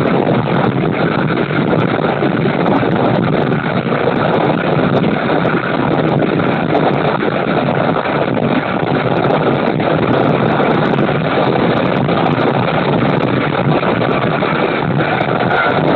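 Steady wind rushing over the microphone at the open window of a moving KiHa 205 diesel railcar, with the railcar's engine and running noise underneath.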